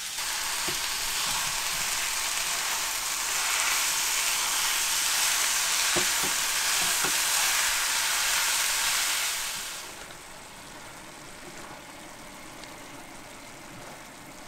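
Ground beef and ground turkey sizzling in a ScanPan nonstick skillet as a silicone spatula stirs and breaks them up, with a few light knocks of the spatula against the pan. The sizzle drops suddenly to a softer hiss about ten seconds in.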